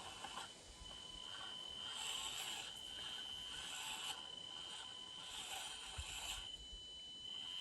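Axial SCX24 micro RC crawler's small electric motor and gearbox whining, with a steady high whine underneath that swells with three short bursts of throttle.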